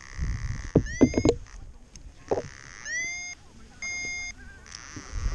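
A paragliding flight instrument beeps three times in short electronic tones. The first two glide up into a steady pitch and the third holds flat throughout. Rustling and knocks of harness and riser handling sound underneath.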